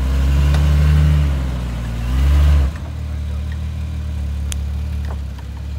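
Lifted Jeep Grand Cherokee's engine revving in two surges under load while crawling over rock, then dropping suddenly about two and a half seconds in to a steady idle.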